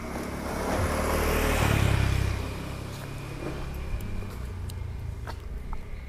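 A motor vehicle going past: a rushing rumble that swells and then fades over about two seconds, followed by a few faint clicks.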